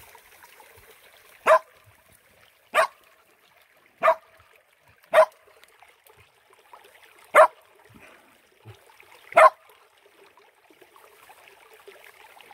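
Shetland sheepdog barking six times, short sharp barks spaced one to two seconds apart, over a faint trickle of shallow river water.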